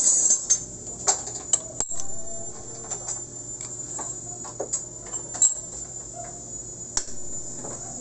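Scattered sharp metal clicks and knocks from a welded motorcycle wheel hub being handled and set in a stationary lathe chuck, the loudest about five and a half seconds in, over a steady high whine.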